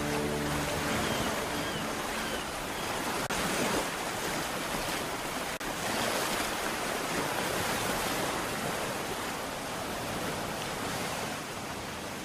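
Sea-wave sound effect: a steady wash of surf that swells and ebbs and grows fainter toward the end. The last held notes of music die away at the very start.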